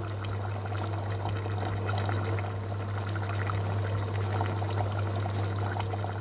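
A pot of watery chicken and potato curry boiling, with a busy, steady bubbling and popping of the gravy. A steady low hum runs underneath.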